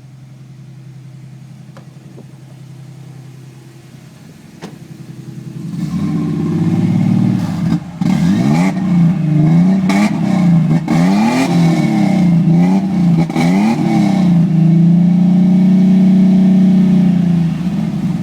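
Toyota 3.0 V6 exhaust with steel Downey headers, a high-flow cat and a Flowmaster Super 40 muffler on 2.5-inch pipe, with a throaty, deep note. It idles steadily, is blipped several times from about six seconds in, then is held at higher revs for a few seconds before dropping back near the end.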